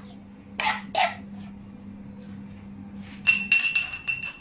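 A spoon mixing a garlic and vinegar marinade in a pan: two quick scraping strokes about a second in, then a rapid run of ringing metallic clinks near the end as the spoon knocks against the pan.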